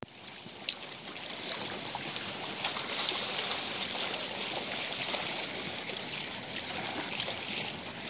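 Shallow sea water lapping and trickling among the rocks and concrete breakwater blocks, a steady wash. A single sharp click comes shortly after the start.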